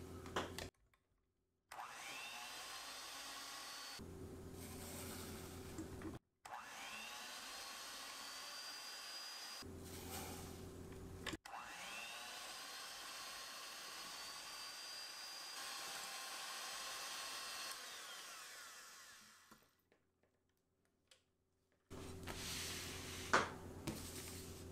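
Electric hand mixer beating egg whites and sugar into meringue: the motor whines up to speed three times and runs steadily in between, then winds down. A short knock near the end.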